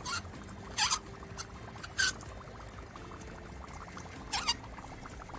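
Dry ice touched with a piece of metal, giving four short hissing squeaks, some ending in a falling whine.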